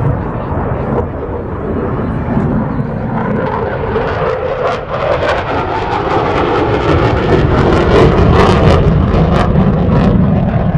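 Airplane flying past at an air show, its engine noise growing louder and rougher from about halfway through and peaking near the end.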